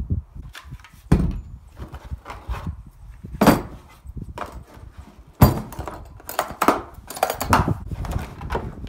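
Plastic Makita tool case being handled on a wooden floor: irregular clunks and knocks from the lid, the latches, and the drills and batteries inside it. The sharpest knocks come about three and a half and five and a half seconds in.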